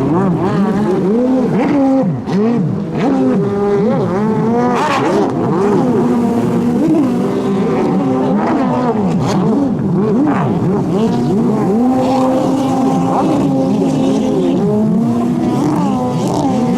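Several racing jet ski engines running hard at once. Their pitches rise and fall as the skis accelerate and turn.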